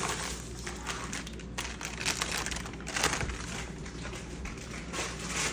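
Plastic packaging crinkling and rustling in irregular handfuls as the printer's toner cartridge is unwrapped, with a couple of sharper crackles about two and three seconds in.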